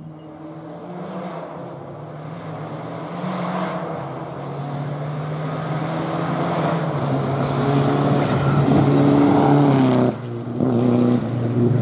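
Rally car engine at full throttle on a gravel stage, growing steadily louder as it approaches, its note stepping in pitch at each gear change, with a hiss of tyres and gravel as it comes close. About ten seconds in the engine note cuts off abruptly, then picks up again as the car slides past.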